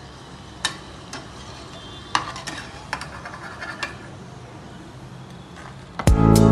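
Oil sizzling steadily as bread samosas deep-fry in a kadhai, with a handful of sharp clinks from a slotted metal spatula against the pan. Loud electronic music with a steady beat cuts in near the end.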